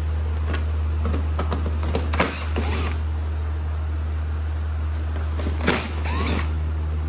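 Cordless driver backing out 10 mm screws from a plastic undercover in two short runs, about two seconds in and again near six seconds, each with a sharp click and plastic rattle. A steady low hum runs underneath.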